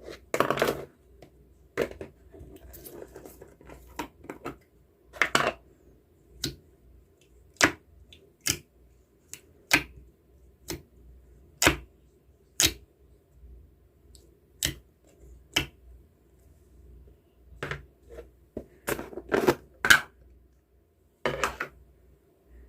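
Handling noise from close-up handwork: irregular sharp clicks and taps, with a few short rustling bursts, over a faint steady low hum.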